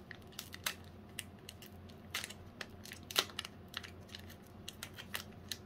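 A sealed foil booster pack being flicked at and handled to try to pop it open: faint, irregular crinkles and sharp little clicks, the loudest snap a little past three seconds in.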